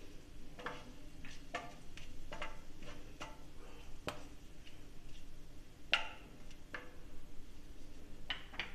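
Whole spices (cinnamon, cloves, cardamom and bay leaves) frying in hot oil in a nonstick pan, crackling with irregular sharp pops about every half second over a faint sizzle. The loudest pop comes about six seconds in.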